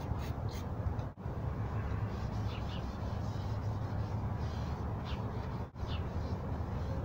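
Outdoor ambience: a steady low rumble with a few short bird calls, possibly crows, scattered through it.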